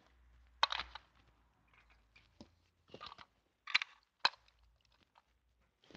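Small plastic Littlest Pet Shop figures being handled and set into a plastic toy car: faint, scattered light clicks and rustles.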